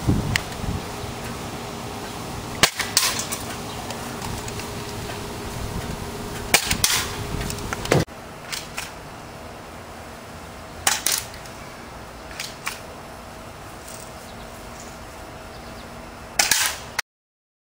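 Airsoft M14 rifle firing single shots: sharp snaps spaced a few seconds apart, several coming in quick pairs.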